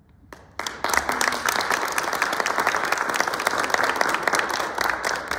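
Audience applauding: dense clapping breaks out about half a second in and carries on steadily.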